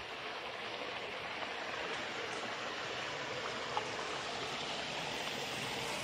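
Steady rushing of a mountain river flowing over rocks, with one faint tick about two-thirds of the way through.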